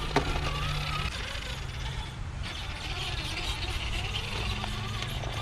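An Axial SCX10 III RC crawler's electric motor whining at crawl speed in short stretches, with a click just after the start and birds chirping over outdoor background noise.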